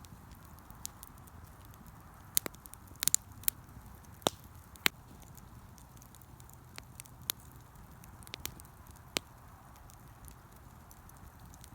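Campfire crackling: scattered, irregular sharp pops over a faint steady hiss, with a cluster of louder pops a few seconds in.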